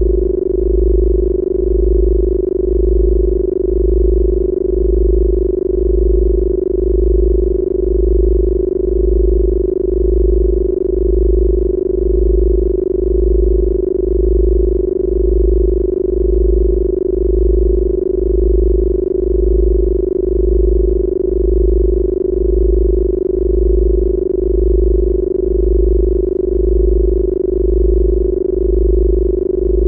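Synthesized Rife-frequency drone: a steady mid-pitched hum under a deep low tone that throbs on and off about once a second.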